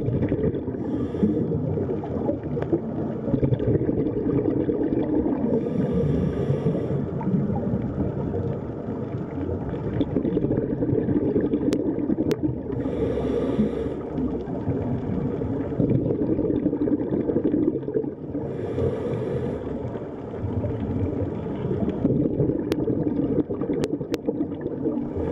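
Underwater sound from a diving camera: a steady muffled rushing, with a hissing scuba-regulator breath about every six or seven seconds and a few faint clicks.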